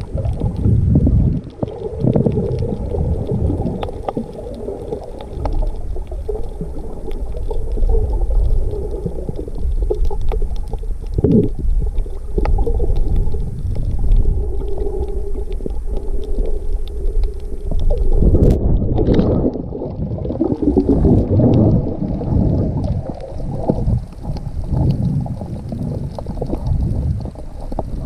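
Water moving around a camera held underwater: muffled, uneven low rumbling and gurgling, with a sharp click about two-thirds of the way through.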